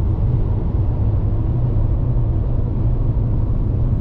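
A car driving at road speed: steady low rumble of engine and tyre noise.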